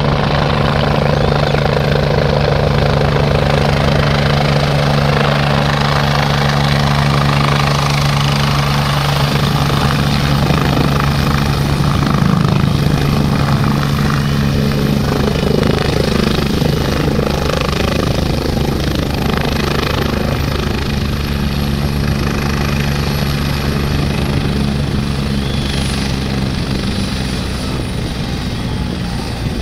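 Helicopter rotor and turbine engines running loudly and steadily as it comes in to land. A high turbine whine slowly falls in pitch through the second half, and the sound eases off near the end as the machine sits on the pad with the rotor still turning.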